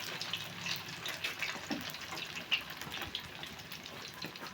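Batagor pieces (battered tofu and fishcake) frying in hot oil over medium heat: a steady sizzle with many small irregular crackles.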